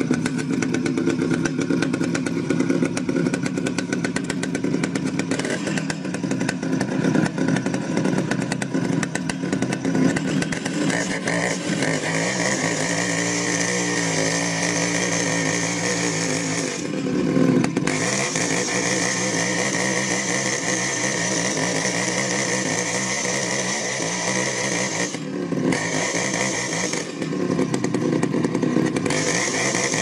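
Stihl chainsaw with a long bar running at high revs as it cuts into a large log, a steady engine whine with brief dips in tone around the middle and near the end.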